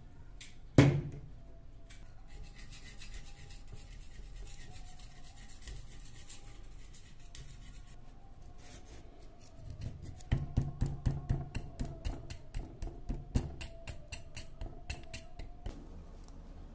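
A metal scraper blade scraping rust and caked dirt off the rusted steel body of an air stapler: first a steady scratching, then in the second half quick repeated scraping strokes, about three a second. A single sharp knock about a second in.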